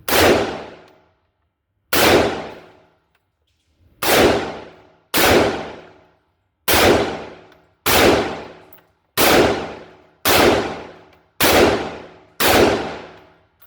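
Ten rifle shots fired one at a time with 5.56 Monarch ammunition, spaced about a second or two apart, each a sharp report that dies away over about a second.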